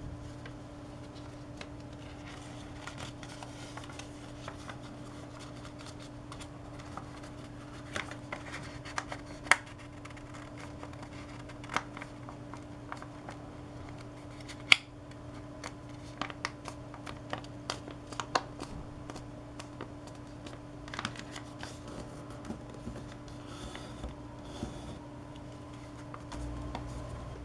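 A sheet of origami paper being folded and creased by hand: scattered crisp clicks and rustles of paper, a few sharper snaps among them, over a steady low hum.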